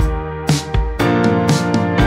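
Background music with a steady beat: sustained chords over regular drum hits and deep thumps.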